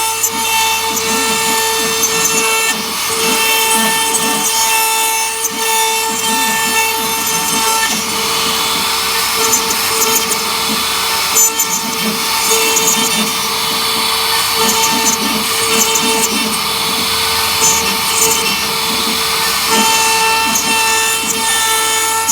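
CNC router spindle running with a steady high whine while its bit carves wood, over a continuous rasping cutting noise.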